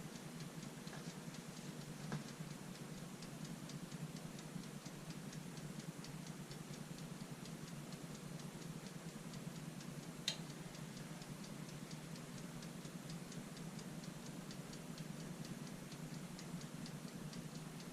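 Faint, steady ticking of a toaster oven's mechanical timer, about four ticks a second, over a low steady hum. One sharper click about ten seconds in.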